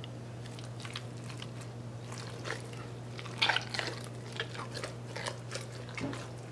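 Wet squelching and soft smacks of hands packing stuffing into a raw turkey's cavity, in short irregular bursts, loudest about halfway through.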